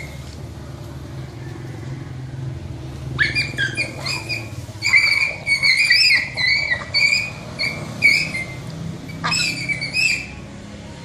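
Puppy whining and yelping in a quick run of short, high-pitched cries. A motor vehicle's engine hums in the background and fades out about halfway through.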